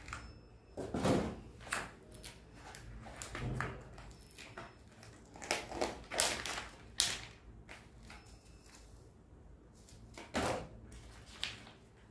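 Clear plastic sweets tray and its packaging being handled over a cardboard box: irregular crinkles and rustles of plastic with a few light knocks, each short and separate.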